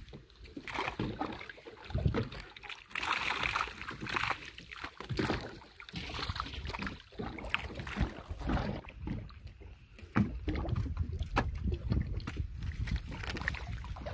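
Water splashing and sloshing against the side of a boat as flying fish thrash in a gillnet at the surface, in irregular bursts with sharper slaps in the second half. A low wind rumble on the microphone runs underneath.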